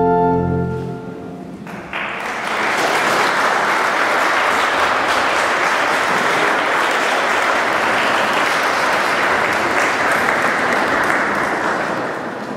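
An organ's last held chord dies away in the church's echo; about two seconds in, the congregation starts applauding, steady until it begins to fade near the end.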